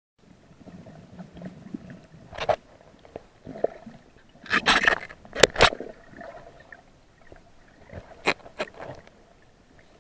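Underwater sound picked up through an action camera's housing: a low hum with scattered sharp knocks and clicks, and a few short gurgling bubble bursts in the middle.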